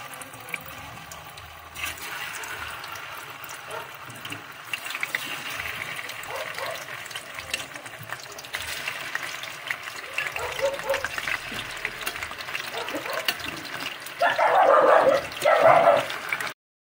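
Blocks of firm tofu frying in hot oil in a pan: a steady sizzle with small crackles, louder in two spells near the end.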